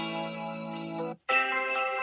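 Samsung Galaxy S23 ringtones playing: one electronic ringtone's held notes cut off about a second in, and after a very brief silence the next ringtone's melody begins.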